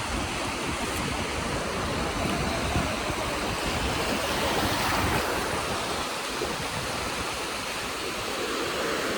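Sea surf washing onto the beach: a steady rush of breaking waves that swells slightly about halfway through.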